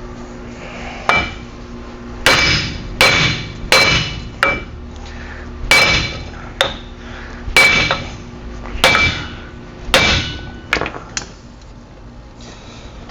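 Hammer striking metal, about a dozen irregularly spaced blows that each ring briefly, during work on a pickup's front wheel hub and axle shaft. The blows stop a little before the end.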